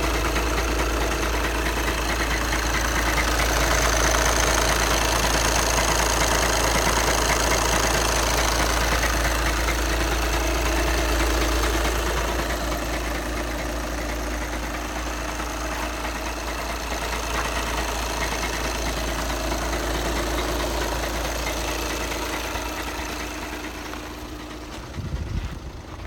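2011 VW Passat B7's 2.0 TDI four-cylinder diesel running steadily, with a noise from the DSG gearbox area that the owner puts down, as usual on these Passats, mostly to the dual-mass flywheel. It fades slowly in the second half, and a couple of thumps come near the end.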